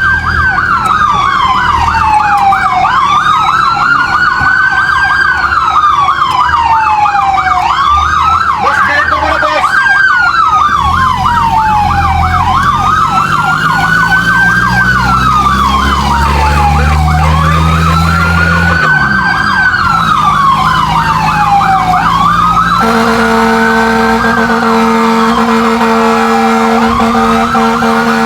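Fire truck sirens: a wail rising and falling about every five seconds, with a faster yelping siren over it and the truck's engine running underneath. About 23 seconds in, a steady horn blares and holds to the end.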